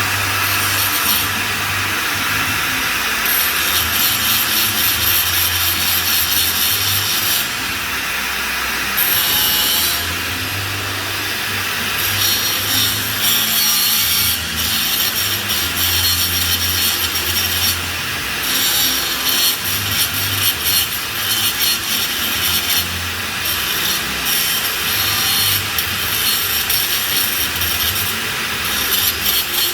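Flux-cored arc welding on pipe: the arc crackling and hissing steadily, with small dips in intensity.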